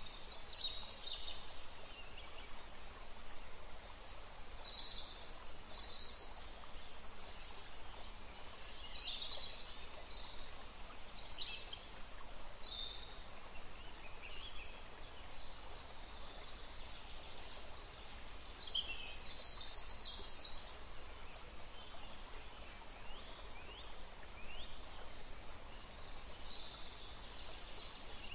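Birds chirping with short, scattered calls throughout, over a steady background hiss.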